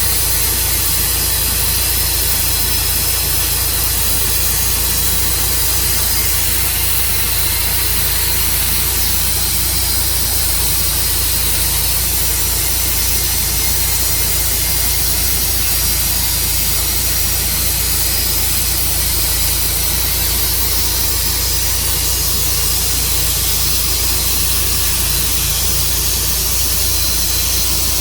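Tru-Cut sawmill running steadily while sawing an elm log: a low, even engine hum under a constant hiss, with no let-up.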